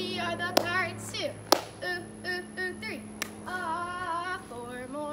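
A girl chanting a cheer in a high, sing-song voice, broken by three sharp hand claps.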